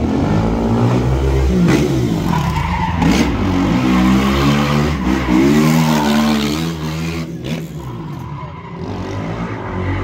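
Sport quad bike's engine revving hard, its pitch rising and falling again and again, with tyres skidding on asphalt during stunt riding. It eases off for a moment near the end, then picks up again.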